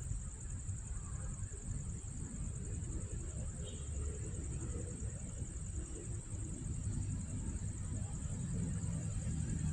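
Insects chirring in one steady, high-pitched drone, over a low rumble.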